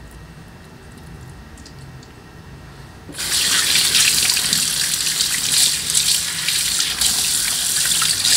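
Kitchen tap turned on about three seconds in, water running steadily over a raw chicken wing and hands and splashing into a stainless steel sink.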